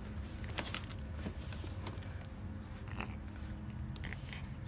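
An animal chewing or biting: scattered soft crunchy clicks over a steady low hum.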